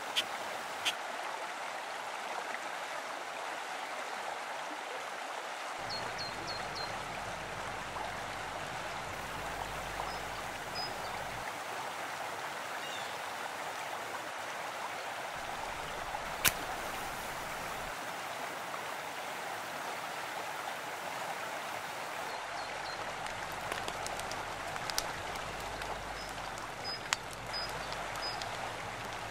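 Mountain stream flowing with a steady rush of water, joined by a few faint high chirps and a single sharp click about halfway through.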